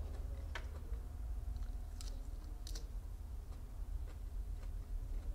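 A few crisp clicks and snaps from magnolia petals being bitten and handled, over a low steady hum.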